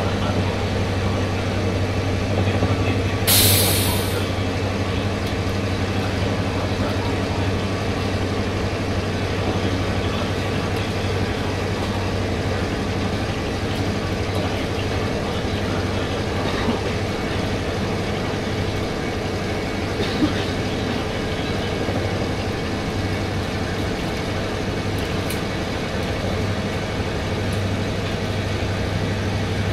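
Steady low drone of a KiHa 005 diesel railcar's DMH17C straight-eight diesel engine, heard inside the car. A short sharp air hiss comes about three seconds in, and there are two faint clicks later on.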